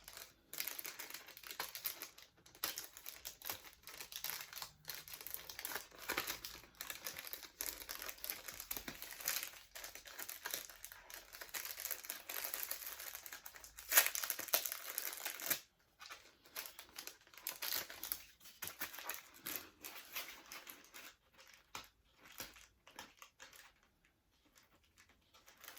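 Paper and cardboard toy packaging being crinkled and torn open, with sticky tape being pulled off. The crackling and rustling is busiest in the first half, with a loud rip about 14 seconds in, then turns quieter and more sparse.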